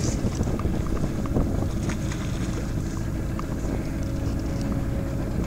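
A fishing boat's motor running steadily at trolling speed, with wind noise on the microphone and a few faint ticks of a jacket brushing against it.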